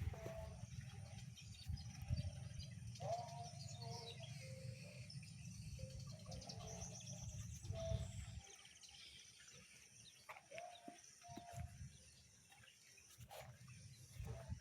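Farmyard animals and birds calling: short mid-pitched calls scattered through, with high bird chirps above them. For the first eight seconds or so they sit over a low rumble on the microphone, which then drops away.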